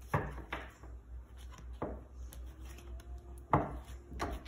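A tarot deck being shuffled by hand overhand, with about five sharp card slaps, the loudest about three quarters of the way through.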